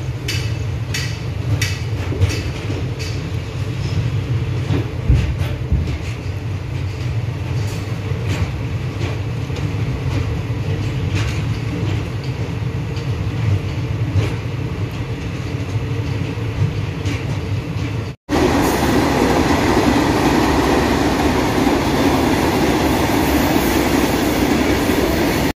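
Passenger train rolling slowly along the rails, heard from an open coach door: a low rumble with sharp wheel clicks over the rail joints, which come further apart as it goes on. About eighteen seconds in, the sound cuts out for a moment and gives way to a louder, steady rushing noise.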